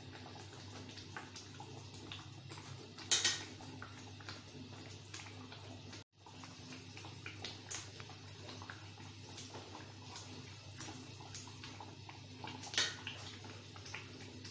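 Thick masala gravy bubbling and sputtering in a large metal wok, with scattered small pops over a steady low hum; the oil is separating, the sign that the masala is fully fried. Two louder clattering knocks come about three seconds in and again near the end.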